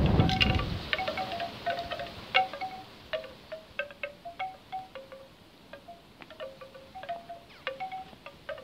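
Bamboo wind chime knocking in the breeze: an irregular scatter of short clacks and brief notes. A gust of wind rumbles on the microphone at the start and dies away within about a second.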